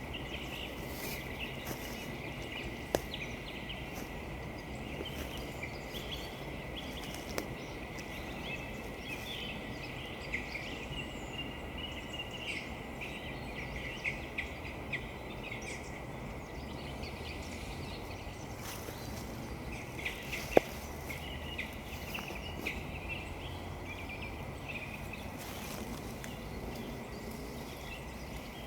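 Woodland birds calling with short, frequent chirps over a steady background hiss. Two sharp clicks stand out, one about three seconds in and a louder one about twenty seconds in.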